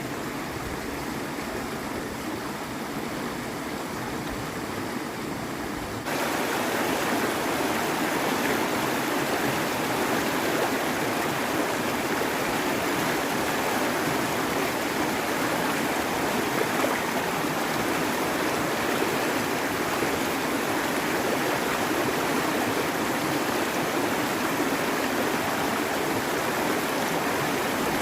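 Running water rushing steadily, turning suddenly louder about six seconds in and holding steady after that.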